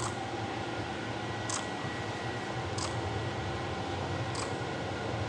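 Steady low hum and hiss of a lit show cave, with a faint thin steady tone and light high ticks about every second and a half.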